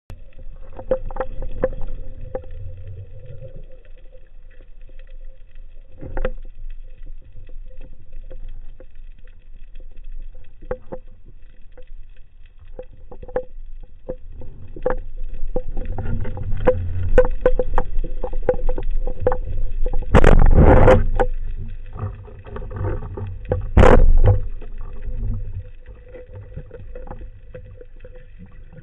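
Water noise picked up by a spearfisher's camera: a low churning with scattered clicks and a faint steady hum. Two louder rushing bursts come through, one about twenty seconds in lasting about a second and a shorter one a few seconds later.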